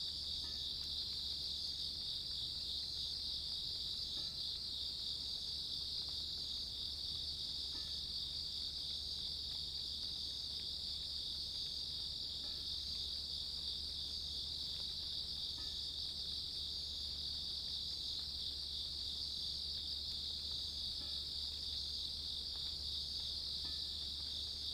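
Grass insects, crickets, chirring in a steady, unbroken high trill.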